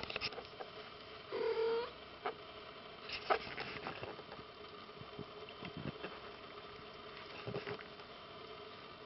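A three-week-old British Shorthair kitten mewing once, a thin high cry that rises and falls, about a second and a half in, with small taps and rustles of kittens crawling on the bedding around it.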